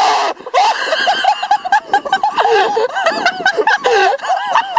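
A person laughing hard in a rapid run of short, high giggles and snickers.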